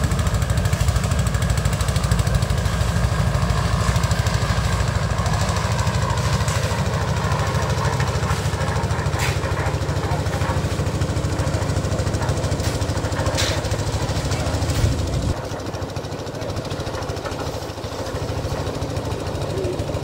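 Engine-driven portable concrete mixer running steadily, with a rapid pulsing beat. About fifteen seconds in it becomes quieter and keeps running, and a few sharp clicks sound over it.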